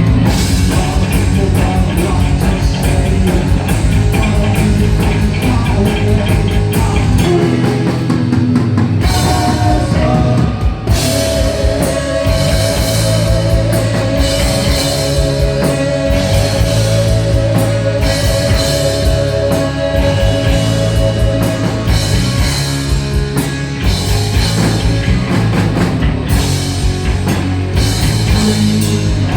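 Heavy metal band playing live, with distorted electric guitar, bass and a pounding drum kit. About a third of the way in, a single high note is held for around ten seconds with a wavering vibrato over the band.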